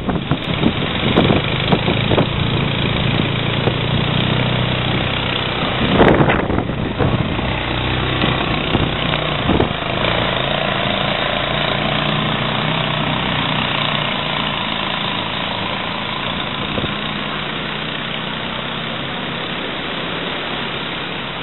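Small engine of a motorised boat trailer running steadily at idle, with a few knocks in the first couple of seconds and a louder thump about six seconds in.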